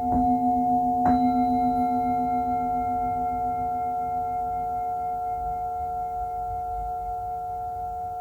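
Singing bowl struck twice, near the start and again about a second in, then ringing on with several steady tones that slowly fade, the lowest one pulsing in a slow, even beat.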